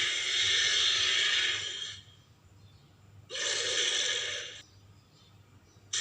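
Ceratosaurus dinosaur sound effect: a long breathy snort that stops about two seconds in, then a shorter snort with a deeper start a little over a second later.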